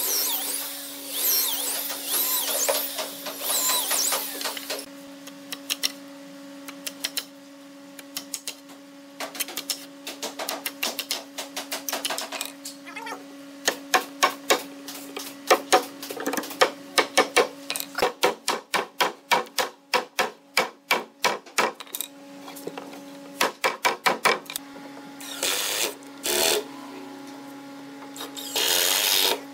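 A corded electric drill boring into plywood for the first few seconds, then a long series of hammer blows on a wooden strip, coming fast in the middle, then two short runs of a cordless drill near the end. A steady low hum runs underneath.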